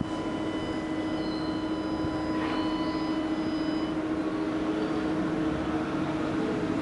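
Steady mechanical hum with a few constant tones over a low rumble.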